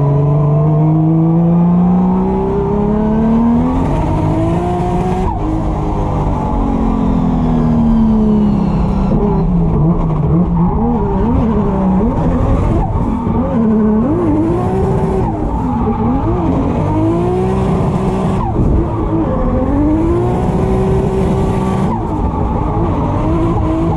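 Drift car's engine revving hard, its pitch swinging up and down again and again as the throttle is worked, over a rushing hiss of tires sliding and squealing.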